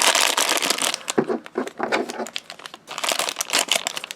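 Thin plastic wrapping crinkling and rustling as small toy packets are handled and opened by hand. It is densest in the first second, then thins to lighter crackles and clicks.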